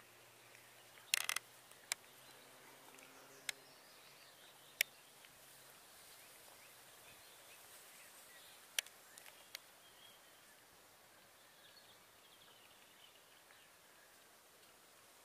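Quiet lakeside ambience with faint bird calls, broken by sharp clicks and taps of the camera being handled, a cluster of them about a second in; a faint low hum runs under the first half and stops.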